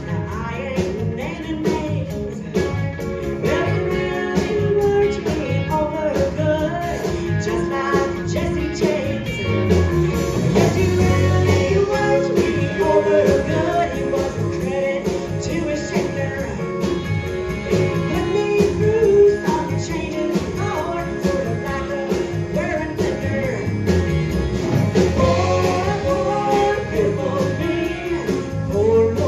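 Live country-rock band playing a song: a woman singing lead over electric guitar, electric bass, pedal steel guitar and drums with a steady beat.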